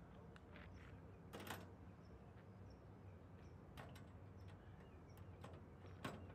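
Near silence: faint outdoor background with a few soft clicks and faint high chirps.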